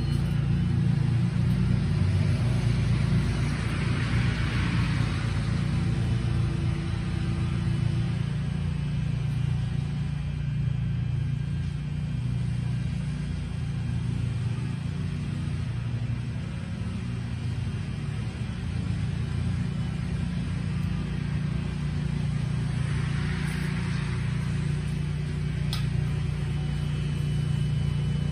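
An engine idling steadily, a low even rumble, with a soft hiss swelling up twice, about four seconds in and again near the end.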